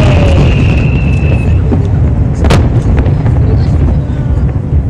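Aerial fireworks booming over a continuous low rumble, with one sharp bang about two and a half seconds in. A high whistle fades out in the first second and a half.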